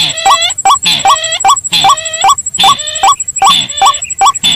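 Looped bird-lure recording of white-breasted waterhen (ruak-ruak) and sintar ladang rail calls mixed together: loud, harsh, layered call notes with short rising notes between them, repeating in a fast, steady rhythm. A faint steady high-pitched tone runs underneath.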